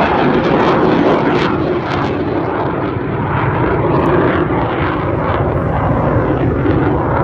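Steady, loud jet engine noise from a Blue Angels F/A-18 jet flying past.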